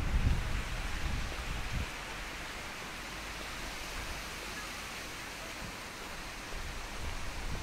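Outdoor wind: irregular gusts buffet the microphone with low rumbles for the first two seconds, then settle into a steady, even hiss.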